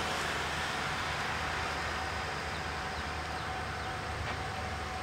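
Diesel locomotives of an approaching freight train, heard at a distance as a steady low rumble under an even hiss, with one thin steady tone held throughout.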